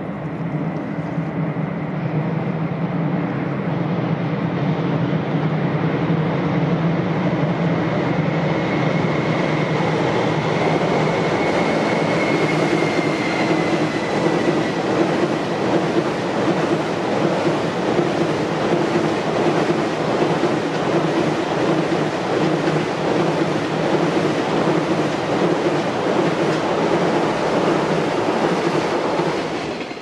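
Long JR Freight container train rolling across a steel girder railway bridge: a loud, steady rumble of wheels on rail, with a faint high whine that rises a little and fades away in the first half. The sound cuts off abruptly at the very end.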